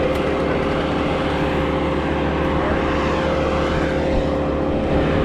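Strong wind buffeting the microphone, with the steady hum of an engine running underneath at an even pitch.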